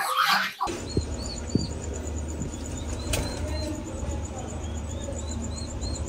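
Small birds giving short, repeated chirps over a steady low rumble, with a single sharp click about three seconds in.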